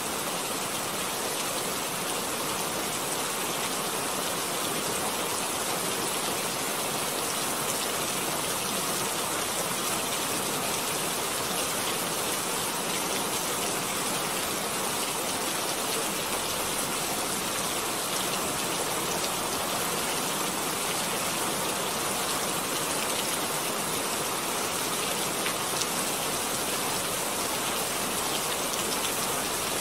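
Steady hiss of rain at an even level, with no pitch or rhythm and an occasional faint tick.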